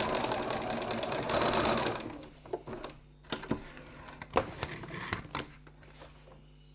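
Sewing machine stitching at a fast, even rate, stopping about two seconds in; a few sharp clicks and knocks follow over a low steady hum.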